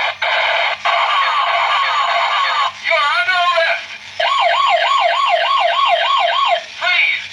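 Electronic siren sound effect from a battery-powered toy's small speaker: steady tones with short breaks, then a fast up-and-down warble about three times a second in the second half.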